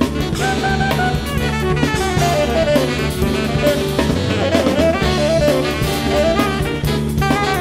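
Saxophone jazz ensemble playing live: saxophones carrying a moving melody line over drum kit and bass guitar.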